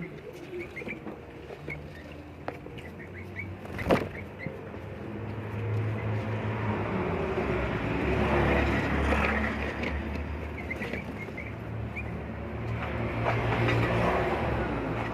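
A motor vehicle going past, its low rumble building about halfway through and swelling twice, with a sharp click a few seconds in.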